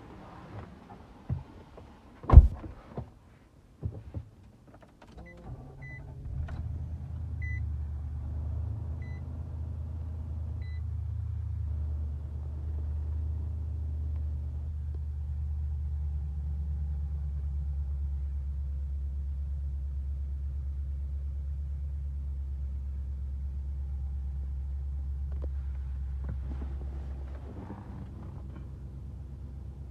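Inside a Nissan Titan pickup's cab: a few knocks and one sharp thump, then a steady low hum from the truck that sets in about five seconds in and holds for some twenty seconds before dropping away near the end. Five soft, evenly spaced chime beeps sound just after the hum begins.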